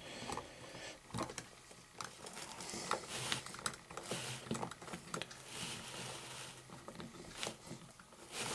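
Faint scattered clicks and rustling of plastic toy parts being handled, as a crank is fitted and turned to draw in the ribbon belt of a GoldieBlox Spinning Machine.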